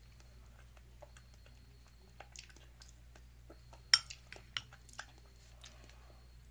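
Metal spoon clinking and tapping against a ceramic bowl of ice cream: scattered light clicks, with one sharp clink about four seconds in and a few lighter ones just after.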